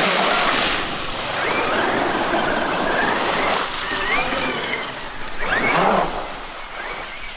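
Traxxas X-Maxx electric RC monster truck being driven: its motor whine rises and falls in pitch as it speeds up and slows, over a rush of tyre and ground noise, loudest at the start and again near the end.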